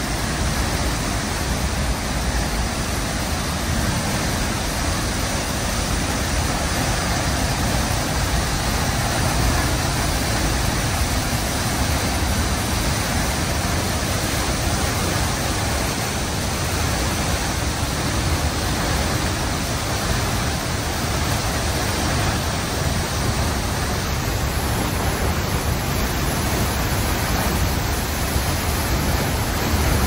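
The Berglistüber waterfall on the Fätschbach plunging into its pool close by: a steady, unbroken rush of falling water.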